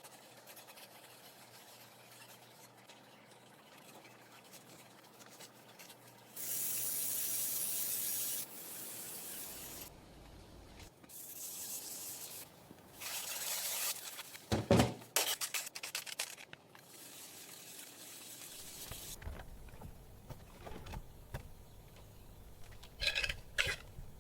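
A run of restoration work sounds, mostly rubbing and sanding, with a loud spray-like hiss for about two seconds a quarter of the way in, and a cluster of sharp clicks and knocks a little past the middle.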